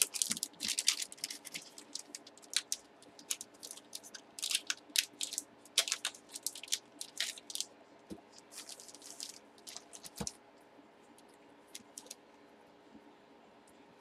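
A yellow padded envelope crinkling and rustling as it is handled and folded, in quick crisp bursts for about the first ten seconds, then only a few faint ticks.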